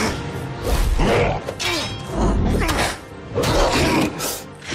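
Dramatic music from a film sword-fight scene, broken by several heavy hits and deep thuds about once a second.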